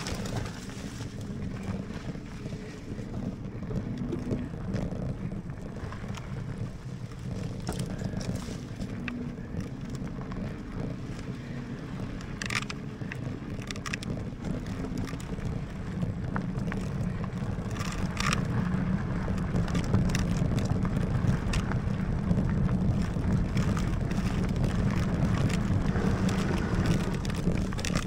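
Lectric XPeak electric fat-tire bike riding on a dirt trail: tyre rumble with wind buffeting the microphone, growing louder as the speed builds. There are a few brief clicks and rattles about halfway through.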